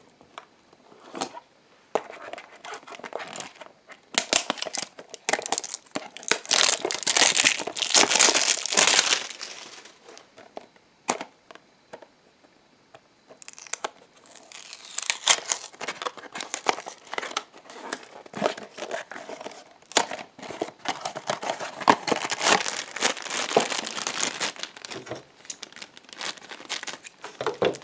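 Packaging of a Funko Mystery Minis blind box being torn open and crinkled: cardboard and plastic wrapping crackling and ripping. It comes in two long stretches with a brief lull about halfway.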